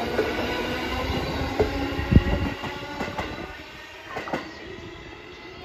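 JR 205 series electric train running past and pulling away, with a steady hum from its running gear and sharp clacks as its wheels cross rail joints, spaced in pairs. The sound fades after about three and a half seconds as the train recedes.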